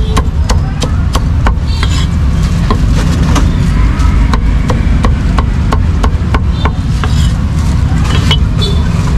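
Meat cleaver chopping crispy roast pork belly on a thick wooden chopping block: sharp knocks about one or two a second, fewer near the end, over a steady low rumble of street noise.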